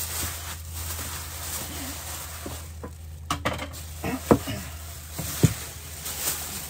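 Thin plastic bag rustling and crinkling as it is pulled over a tray of bread rolls, with two sharp knocks about four and five and a half seconds in.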